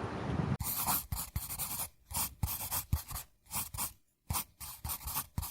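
Irregular short scratching and rustling noises with small clicks, in bursts separated by brief gaps. They start abruptly about half a second in, replacing a steady faint outdoor background.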